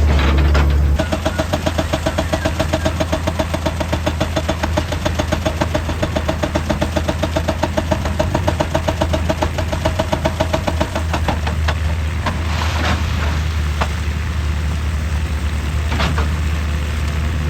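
Heavy diesel machinery running with a deep, steady engine hum. From about a second in until about eleven seconds it carries a fast, even pounding rhythm; after that the engine runs more steadily, with a couple of sharp knocks.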